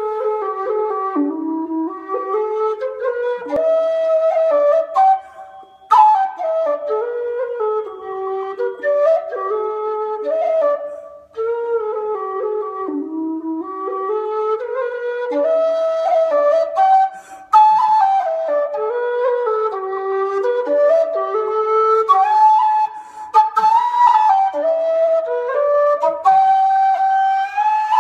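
Chieftain low whistle played solo, a slow air in one melodic line, with short breath pauses between phrases.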